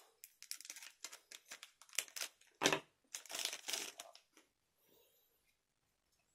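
Foil booster-pack wrapper crinkling and trading cards being handled, in quick irregular crackles with one louder knock about two and a half seconds in. It goes almost quiet after about four and a half seconds.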